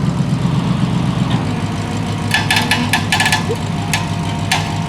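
Truck engine idling with a steady low rumble that settles lower about a second and a half in. From a little past two seconds, a series of short sharp clicks or knocks.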